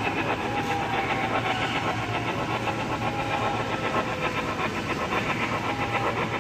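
HO-scale model of a Norfolk & Western Y6b steam locomotive running along the track with its passenger cars, a steady mechanical running sound.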